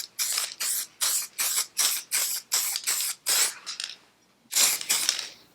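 Aerosol spray paint can hissing in a quick run of short bursts, about three a second, then a short pause and one longer burst near the end.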